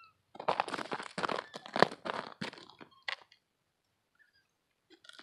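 Boots crunching on snow-covered lake ice, a run of steps in the first three seconds, then quiet, with another crunch near the end.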